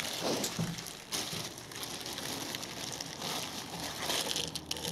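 Handling noise: light crackling and rustling with many small clicks, as the small stones found in the washing machine's drain are handled.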